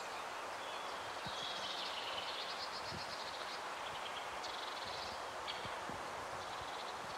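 Forest ambience: a steady hiss with several high, rapid trilling calls that come and go every second or so.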